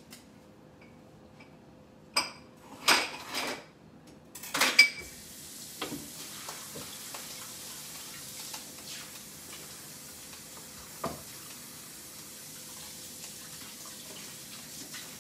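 A few sharp clatters of a cutting board and utensils being handled, then a kitchen tap running steadily for about ten seconds as the cutting board is rinsed, with one knock partway through.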